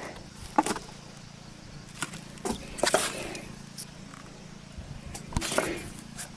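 Scattered knocks and scrapes from hands-on roof-tile repair work: a few short sharp hits, bunched about two to three seconds in and again past five seconds.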